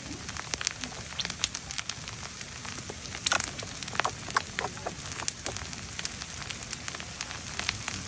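Firewood burning, crackling with irregular sharp pops, the loudest of them about halfway through.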